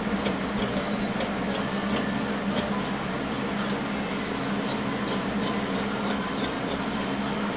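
Faint scrapes and ticks of a small hobby knife shaving a wooden pipe bowl in short strokes, over the steady hum of an electric fan.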